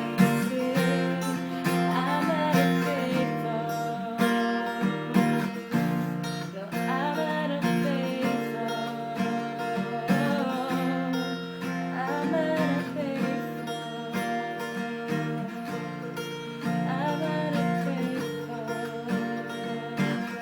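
Acoustic guitar being strummed through a chord progression.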